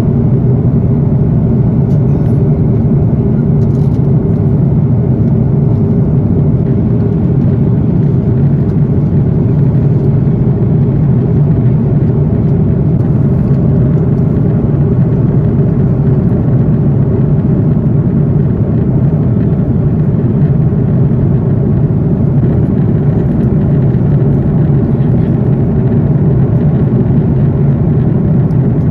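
Steady in-flight cabin noise of an Airbus A330-900neo: an even, low rumble of its Rolls-Royce Trent 7000 engines and the airflow around the fuselage, heard from inside the cabin.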